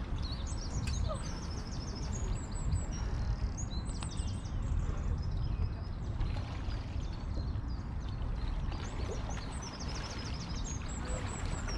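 Outdoor lakeside ambience: a steady low rumble of wind on the microphone, with a small bird singing high, short trilled phrases several times.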